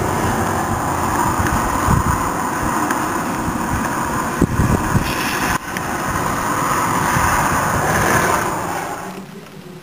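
Steady rushing wind in a snowstorm, with irregular low buffeting on the microphone, fading out about nine seconds in.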